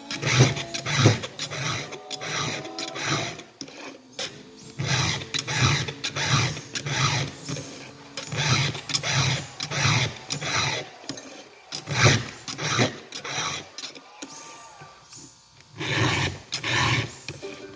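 Round file being drawn across chainsaw cutter teeth by hand: a run of scraping strokes, about two a second, with short pauses as the file moves on to the next tooth.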